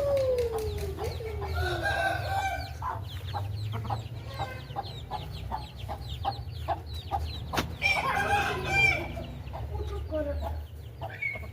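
Aseel chicken clucking: a call falling in pitch at the start, then a run of short, evenly spaced clucks, and a louder stretch of calling about eight seconds in, over a steady low rumble.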